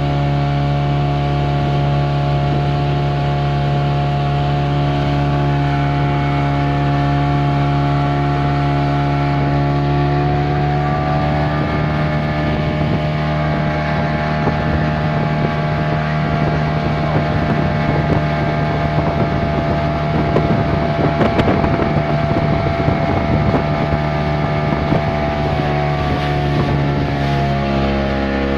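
Boat engine running steadily under way, its pitch rising slightly about ten seconds in. A rushing noise joins it through much of the second half.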